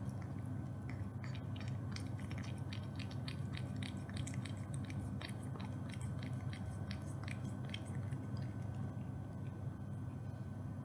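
A cat chewing and biting its food, with rapid crunchy clicks several times a second that thin out near the end.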